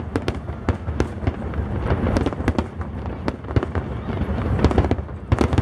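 Aerial firework shells bursting in quick succession: a dense run of overlapping sharp bangs and crackles over a continuous low rumble.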